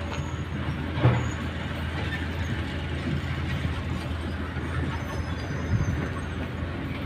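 Komatsu hydraulic excavator's diesel engine running steadily, a low drone, with a short knock about a second in.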